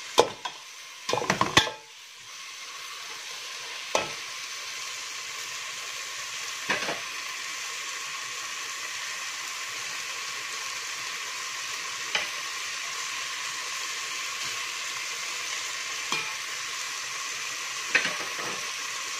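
Chicken pieces with onion and garlic frying in a metal pot, a steady sizzle. A slotted metal spoon knocks and scrapes against the pot: a cluster of clanks in the first two seconds, then single knocks every few seconds.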